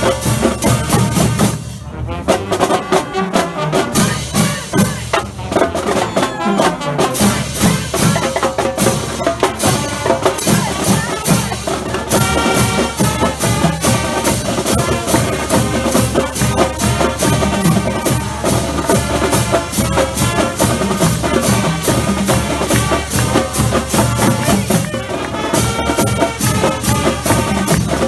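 High school marching band playing its school fight song: brass over a drumline keeping a steady beat.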